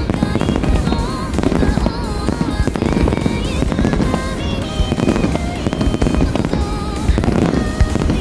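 Aerial fireworks bursting with a dense, continuous low rumble of many booms and cracks in quick succession, under melodic background music.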